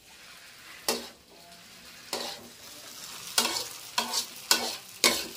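Fried noodles sizzling in a wok while being stir-fried, the spatula scraping and knocking against the pan about six times, more often toward the end.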